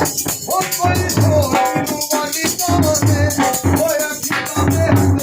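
Punjabi dhol drumming in a steady beat, with the metal jingling of a chimta (fire tongs) and a wavering melodic line over it.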